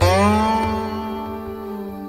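A note on a Chinese plucked zither, struck firmly and bent upward in pitch just after the pluck, then ringing and slowly fading over a soft steady musical backing.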